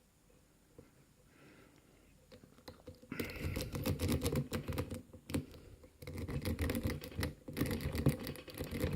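A lock rake scrubbing in and out of the keyway of a Tri-Circle 264 padlock under tension: a dense run of fast metallic clicks and rattles from the pins. It starts about three seconds in and breaks off briefly twice.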